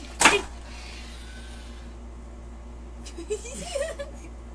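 A person's short, loud shriek about a quarter second in, then a steady low hum, with a few faint clicks and a brief soft vocal sound near the end.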